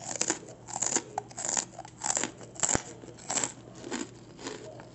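Crunchy Cheetos being chewed close to the microphone: a steady run of crisp crunches, a little under two a second, growing softer near the end.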